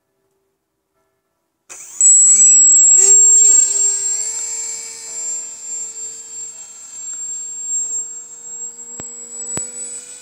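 Electric brushless outrunner motor (iPower iBM2208-8, 2600KV) turning a 6x4 pusher propeller on a depron RC plane. It starts about two seconds in and spools up with a rising whine, is loudest for a second or two, then settles into a steady high buzz that fades as the plane flies away. Two faint clicks near the end.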